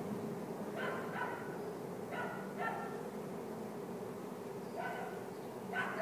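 A dog barking several times, often two quick barks together, over the steady hum of a honey bee swarm flying around.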